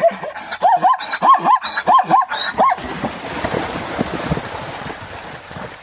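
Zebra calling: a quick series of about eight yelping, barking calls in under three seconds, each rising and falling in pitch. A rushing, noisier sound follows and fades.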